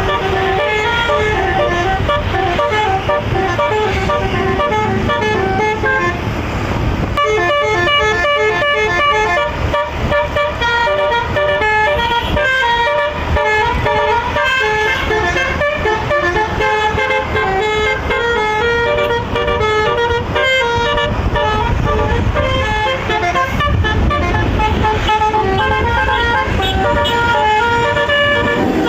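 A front-engine tour bus's six-note telolet horn playing quick melodic tunes, hopping among a few fixed pitches several times a second, over the rumble of the running bus. The tune changes to a new, busier pattern about seven seconds in.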